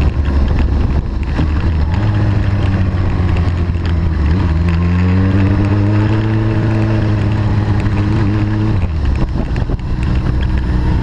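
Sport motorcycle engine running at low speed, heard close to its exhaust as the bike rolls along. The engine note climbs about four seconds in, holds, then drops back near nine seconds.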